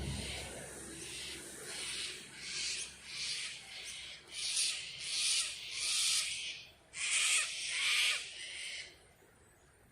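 A bird calling in the bush: a run of about ten rasping calls, roughly one every 0.7 seconds, growing louder and then stopping about nine seconds in.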